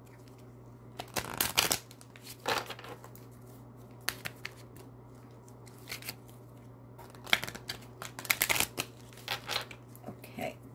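A deck of oracle cards being shuffled by hand in several short bursts of riffling and rustling, with pauses between, over a steady low hum.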